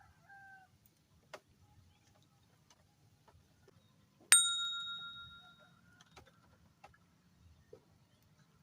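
A single metallic ding about four seconds in, a sharp strike that rings on with several clear tones and dies away over about a second and a half. A rooster's crow trails off at the very start, and a few faint clicks fall elsewhere.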